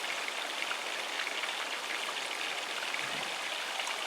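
Cornish hen deep-frying in a Fry Daddy: the hot oil sizzles and bubbles in a steady hiss with fine crackles.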